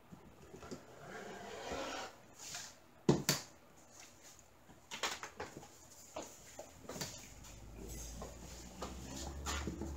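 Handling noise of a diamond painting canvas and a clear ruler on a cutting mat: the canvas rustles, with a sharp knock about three seconds in and a few lighter taps and clicks as it is shifted and turned over.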